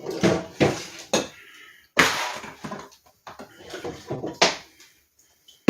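Kitchen clatter of dishes and utensils being handled on a counter: a series of sharp knocks and clunks, the loudest about two seconds in.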